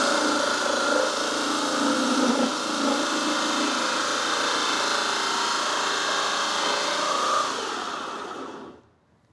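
Corded electric drill spinning a 65 mm Kodenki hole saw as it cuts into 12 mm plywood: a steady motor whine with the saw teeth rasping through the wood. Near the end the drill is let off and winds down to a stop.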